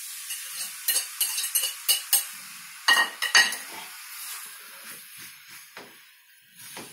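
Minced meat and onion sizzling in a frying pan as chopped tomato is scraped off a plate into it and stirred in with a wooden spatula. There are sharp clinks and scrapes of utensil against plate and pan in the first half, then quieter stirring while the sizzle dies down.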